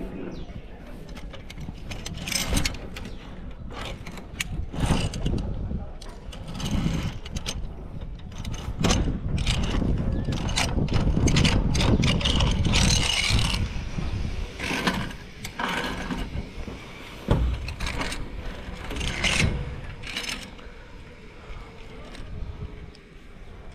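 Metal clinking and rattling of safety gear, carabiners and pulley hardware on a rope course, as a series of separate clicks and knocks, with a louder rumbling stretch about halfway through.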